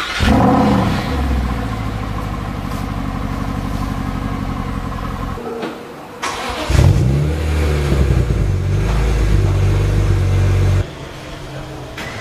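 Two engine start-ups in turn. A Mercedes-Benz SLS AMG's V8 fires with a short rev flare and settles into a steady idle; about six seconds in, a BMW E46 M3's straight-six catches with a rev flare and idles, dropping away near the end.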